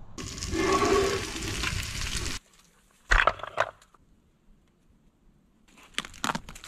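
Steady hissing for about two seconds, then a few sharp knocks, then a run of cracks and scrapes near the end as a knife cuts into tree bark.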